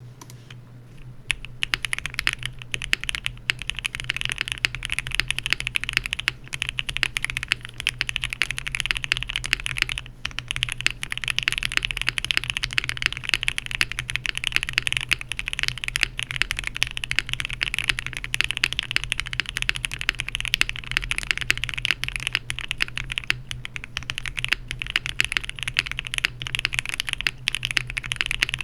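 Continuous typing on an Ai03 Vega custom mechanical keyboard with lubed and filmed Gateron X switches mounted on a POM plate, under GMK keycaps: a dense stream of keystroke clacks with a brief pause about ten seconds in.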